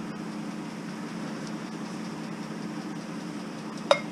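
Steady low hum of an idling vehicle engine, with one sharp metallic clank near the end as a piece of steel scrap is handled.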